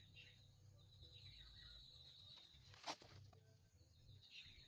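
Faint outdoor ambience: a steady high insect buzz with short bird calls falling in pitch, and one sharp click about three seconds in.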